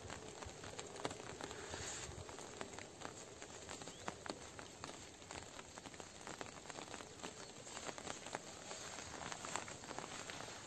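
Quiet outdoor ambience with many faint scattered clicks and crackles over a low hiss; no crossing bell or train is heard.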